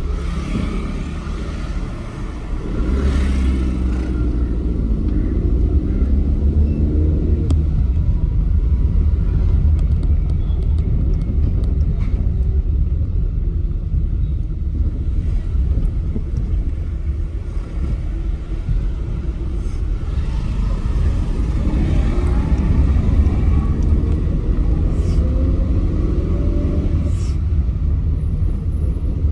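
Ride on a motor scooter: steady low rumble of wind on the microphone and the engine, with the engine note climbing as it speeds up a few seconds in and again about three quarters of the way through.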